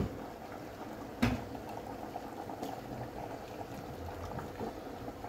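Rice and water boiling in an aluminium pot, a steady bubbling, with a single knock about a second in.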